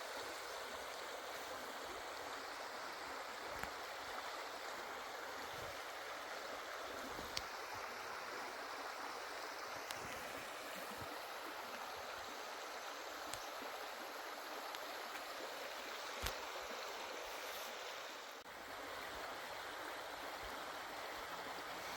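River water running, a steady rushing hiss, with a few faint clicks here and there.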